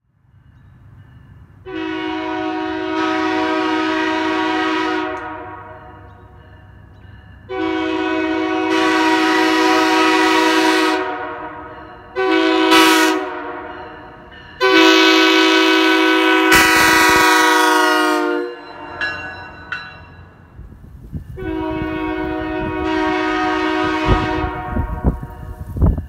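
Nathan K3HA three-chime air horn blowing a chord in five separate blasts, each lasting a few seconds except a short third one. Each blast dies away in a fading tail before the next.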